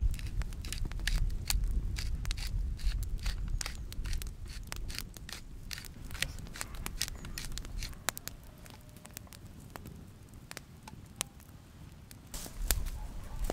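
Wood campfire crackling: irregular sharp snaps and pops, busier over the first several seconds and more scattered later, over a faint low rumble.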